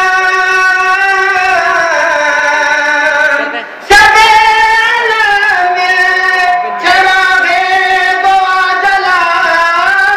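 A group of boys and men singing a devotional song together, unaccompanied, in long held high notes. The voices break off for a moment about three and a half seconds in, then come back in loudly, with another short break near seven seconds.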